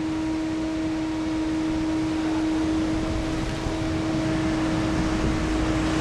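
Automatic car wash machine running: a steady motor hum over an even, constant rushing noise.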